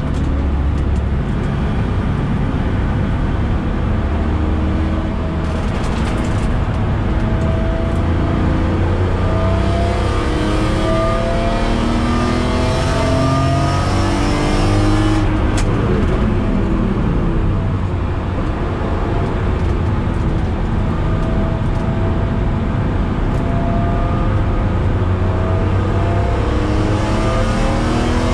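BMW E46 M3's S54 straight-six heard from inside the cabin under hard driving, its pitch repeatedly climbing and dropping back at each gearchange, and falling away about halfway through as the car slows.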